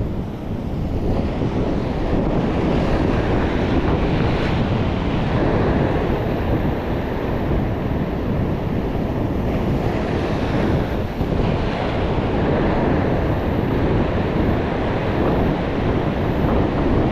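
Ocean surf surging and washing over a rock ledge, with strong wind buffeting the microphone; a steady, loud wash without distinct breaks.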